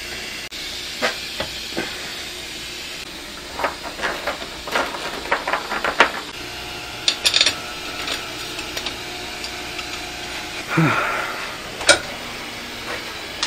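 Metal tools and parts clinking and clattering as they are handled and sorted, in scattered short knocks over a steady hiss.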